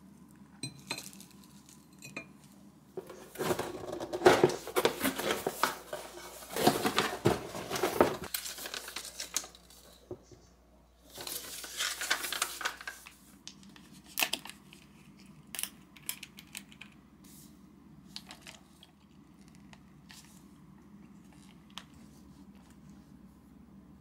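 Tableware and plastic packaging being handled. A long spell of clattering and crinkling is followed by a shorter burst of crinkling, then scattered light clicks.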